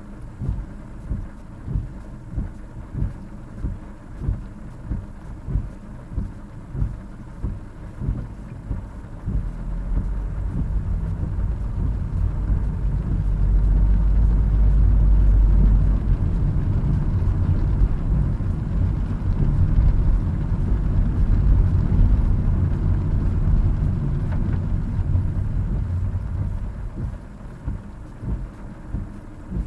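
Car interior in heavy rain: a regular soft knock about one and a half times a second while the car is slow, giving way about nine seconds in to a deep, steady rumble of road and wind noise as the car drives on wet road. The rumble eases off near the end, and the regular knock returns.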